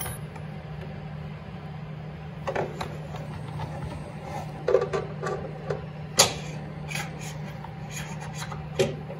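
Steel jackshaft of a Polaris snowmobile pushed by hand through a newly fitted bearing in the mount plate: rubbing and scraping with scattered metal clicks and knocks, the loudest about six seconds in, as the shaft goes home snug in the bearing. A steady low hum runs underneath.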